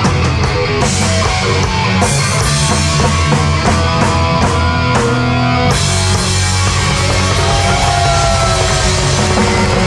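Live heavy metal band playing loud: drum kit, distorted electric guitar and bass. About six seconds in the cymbals and drums drop out, leaving guitar and bass with sliding, bending notes.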